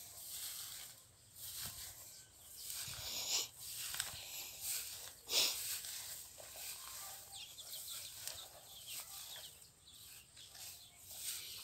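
Footsteps through long grass, with stems brushing and rustling against the walker in irregular swells; the loudest comes about five seconds in.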